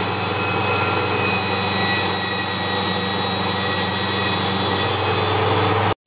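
Table saw running with a steady motor hum and high blade whine as its blade cuts through a thin board; the sound cuts off suddenly near the end.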